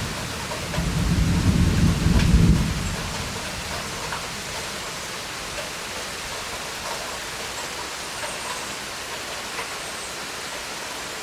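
Steady summer rain falling, with a low rumble of thunder in the first few seconds that fades out by about three seconds in.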